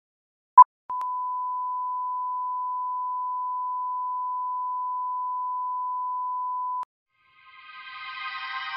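Countdown-leader beep: one short beep, then a steady test tone of the same pitch held about six seconds that cuts off suddenly. Music with several held notes fades in near the end.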